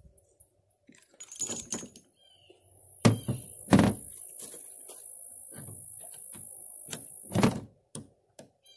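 Handling of a .38 Special revolver and its cartridges between strings of fire: a short rattle, then clicks and dull thunks, the two loudest close together near the middle and two more near the end, over a steady high hiss.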